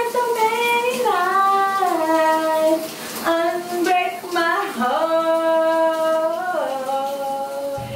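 A woman's voice singing unaccompanied, holding long notes that glide from one pitch to the next, with a few short breaks.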